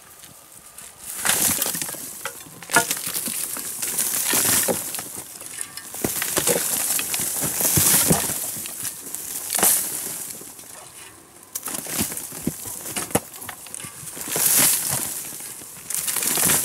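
A hand tool digging into soil: repeated scraping, crunching strokes about every one and a half to two seconds, with a sharp knock about three seconds in.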